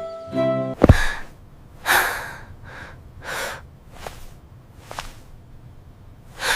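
A music cue breaks off with one loud, low thump, followed by a girl's nervous breaths and gasps coming about once a second, with a couple of faint clicks between them.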